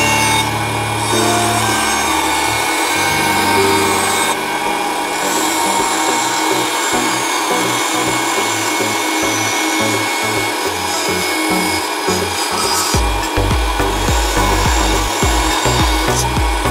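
Narrow-bladed power saw cutting through a thick wooden block along a curved line: a continuous rasping cut over the running motor.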